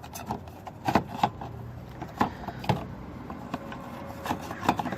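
Irregular clicks and knocks of a fog light assembly being handled and worked into place in a car's bumper while its mounting holes are lined up.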